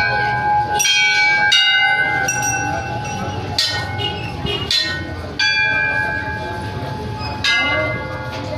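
Hindu temple bells struck again and again at uneven intervals, each strike ringing on with a bright, many-toned ring and the strikes overlapping.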